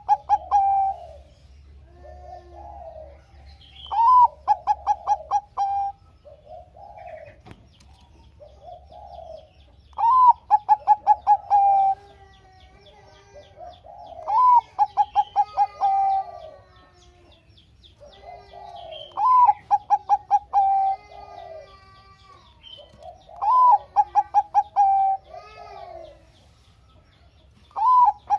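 Bangkok-type perkutut (zebra dove) singing: a loud cooing phrase repeats about every four to five seconds, each opening on a rising note and running into a quick string of short staccato coos, with softer low coos between phrases. Faint chirps of other birds sit high in the background.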